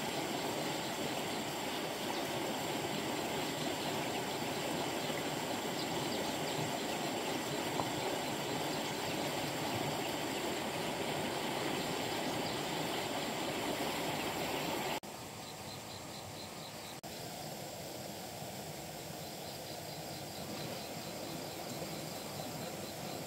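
Steady rush of flowing river water, a full, even noise. About fifteen seconds in it drops abruptly to a quieter, thinner water sound.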